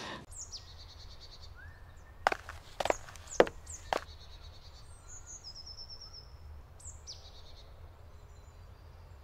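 Small birds chirping in woodland, with short descending calls and a quick run of chirps. Four sharp knocks about half a second apart come a couple of seconds in.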